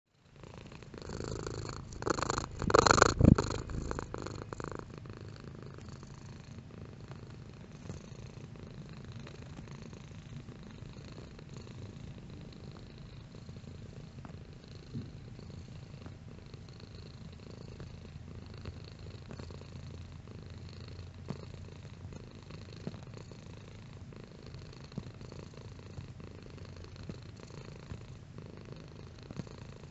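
Domestic cat purring steadily and low throughout, with a brief louder noise about two to three seconds in.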